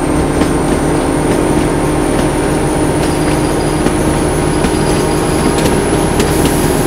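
Narrow-gauge diesel locomotive running at speed, heard close up from the coach behind it: a steady engine drone over wheel and rail rumble, with a thin steady high whine above.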